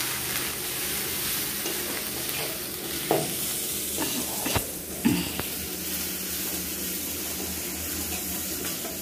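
Onion, ginger-garlic and chilli-powder masala sizzling in hot oil in a steel kadai while a spoon stirs it, the paste being fried down before water goes in. A few sharp knocks and scrapes of the spoon on the pan come about three, four and a half and five seconds in.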